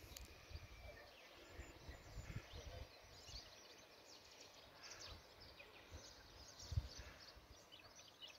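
Near silence: faint outdoor ambience with scattered faint high chirps and a low rumble, and one brief low thump late on.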